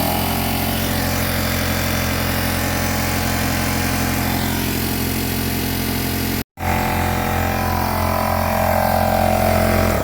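Air compressor running steadily while inflating a flat tire. It drops out for an instant about six and a half seconds in, then runs on a little louder toward the end.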